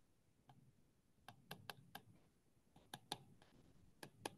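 Faint, irregular clicks of a stylus tip tapping a tablet's glass screen while handwriting, about nine taps over a few seconds.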